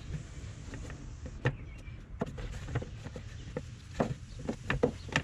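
Irregular light knocks, scrapes and rubs of hands wiping baking soda and soapy water off a corroded car battery tray, the knocks coming thicker near the end.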